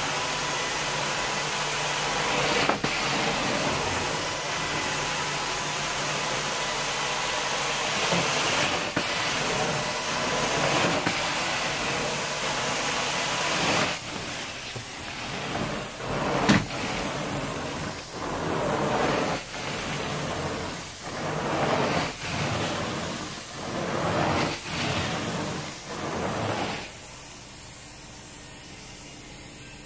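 Carpet-cleaning extraction wand sucking water and air out of the carpet with a steady rushing hiss. About halfway through the hiss starts to surge roughly once a second as the wand is pushed and pulled in strokes, then drops to a quieter steady hiss near the end.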